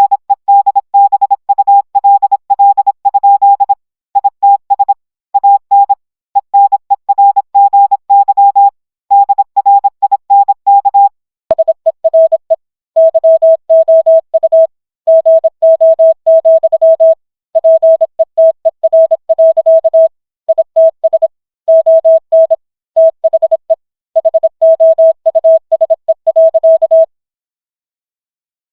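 Morse code beeps: a single pure tone keyed on and off in quick dots and dashes. About eleven seconds in there is a click and the keying carries on in a lower-pitched tone, stopping about a second and a half before the end.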